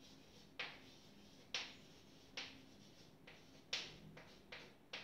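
Chalk writing on a chalkboard: about eight faint, short taps and scratches of the chalk stick as a word is written, coming at uneven intervals.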